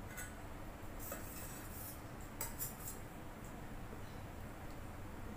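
Metal spoon clinking and scraping against a stainless steel bowl as dal is spooned out: a light clink near the start, a scrape about a second in, and a couple of sharper clinks about two and a half seconds in.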